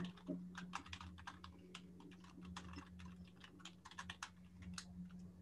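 Faint, irregular run of small clicks and taps, several a second, over a steady low hum.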